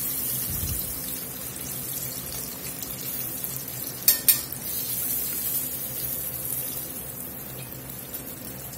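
Battered chicken tenders deep-frying in hot oil in a cast-iron Dutch oven: a steady bubbling sizzle, easing slightly near the end. About four seconds in, metal tongs click twice in quick succession.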